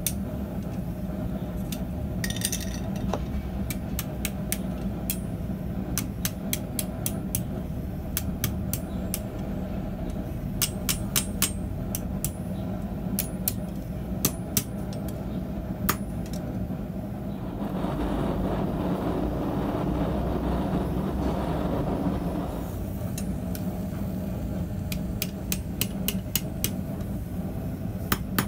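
Hand hammer striking hot 6mm mild steel bar on an anvil: sharp, irregular blows, often in quick runs of several, over a steady low hum. About two-thirds of the way through, a louder rushing noise rises for some five seconds and then fades.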